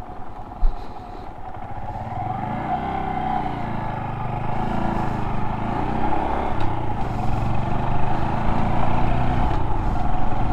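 Honda Monkey 125's single-cylinder four-stroke engine running as the motorcycle is ridden, its revs rising and falling and growing louder through the stretch. A short knock about half a second in.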